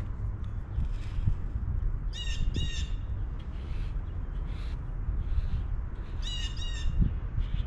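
A bird giving short, harsh, crow-like calls in pairs: two calls in quick succession about two seconds in, and another pair about four seconds later, over a steady low rumble.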